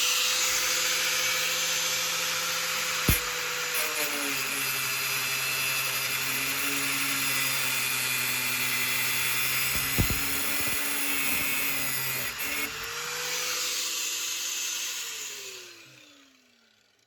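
Angle grinder running and cutting through the Jeep Cherokee XJ's metal door-stop bar, a steady motor whine with a hissing grind; the pitch sags a little under load about four seconds in, with two sharp knocks along the way. Near the end the grinder is switched off and its whine falls away as it spins down.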